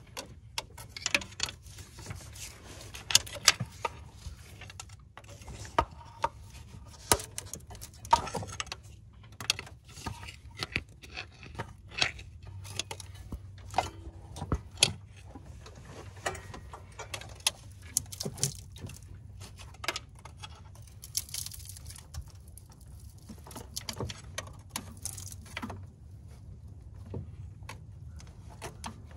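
Metal pry bar clinking and knocking against a stuck engine fuel rail as the rail is pried and rocked loose from its injectors: an irregular run of sharp metallic clicks and knocks.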